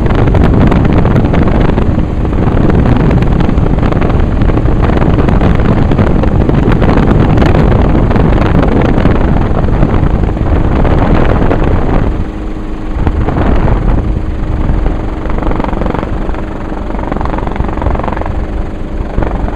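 Loud, steady engine noise mixed with wind buffeting on the microphone, easing somewhat about twelve seconds in.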